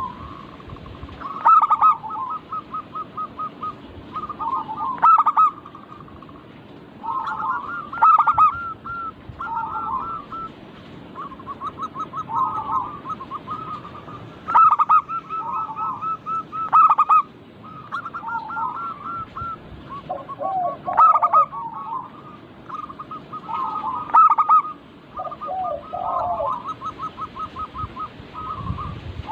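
Zebra doves (perkutut) singing: repeated cooing phrases, each opening with a loud note and running on into a quick series of short, pulsed coos, with lower rolling notes in some phrases. A new phrase begins every two to four seconds.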